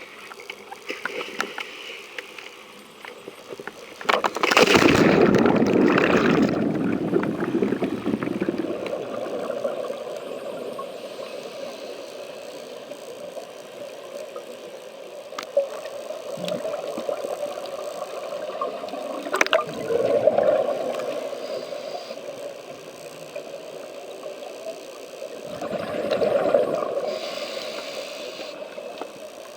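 Underwater sound on a scuba drift dive: a steady rushing rumble of moving water, broken three times by loud gurgling surges of a diver's exhaled regulator bubbles. The first surge is the longest and loudest.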